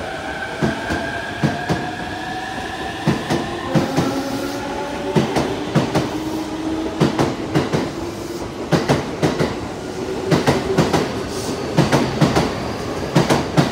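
JR East E233-3000 series electric train accelerating away from a station: its inverter-driven traction motors whine in tones that rise and step to new pitches. The wheels click over rail joints, the clicks coming faster as the train gathers speed.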